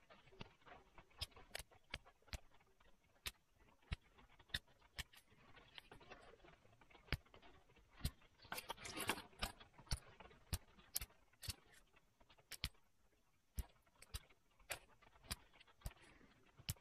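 Flint being pressure flaked with a moose antler tool: sharp clicks as small flakes snap off the edge of a square flint axe. The clicks are irregular, about one or two a second, with a short stretch of scratchy noise a little past the middle.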